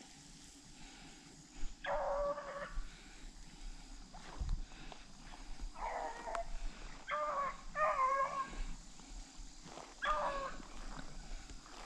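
Beagles baying while running a rabbit's track: five drawn-out, bending bawls of about half a second each, three of them close together in the middle.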